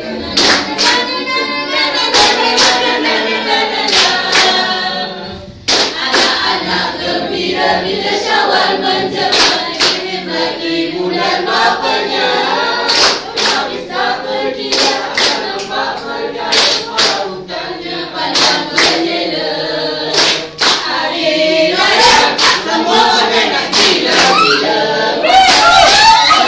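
A group of young men and women singing together, clapping their hands in time with the song. There is a brief break about five and a half seconds in.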